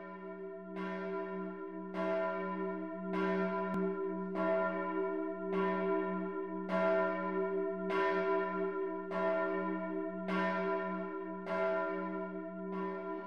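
A single bell tolling at an even, slow pace, struck about once every 1.2 seconds, with each stroke ringing on under the next.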